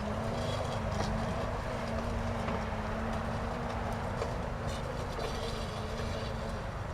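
Electric motor of a 1 HP electric garden tractor running with a steady hum over a low rumble, with a few scattered clicks and knocks. The hum stops near the end.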